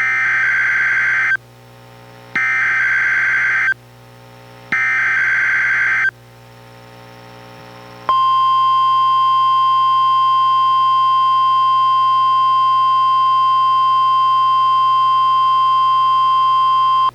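NOAA Weather Radio test alert: three SAME digital header bursts, each a screechy warble about a second and a half long with short gaps between. About eight seconds in, the steady 1050 Hz NWR warning alarm tone starts and holds for about nine seconds.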